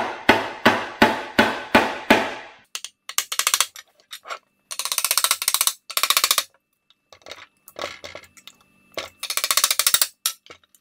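Hammer striking a differential housing to knock the clamshell cover off its alignment dowels. Strikes come about three a second for the first two seconds, each ringing briefly. After that come several bursts of rapid tapping.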